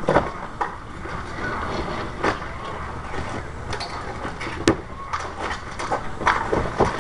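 Roofing work on a shingle roof: irregular knocks, bangs and scrapes from hand tools and shingles, at an uneven pace, the sharpest knock about two thirds of the way in.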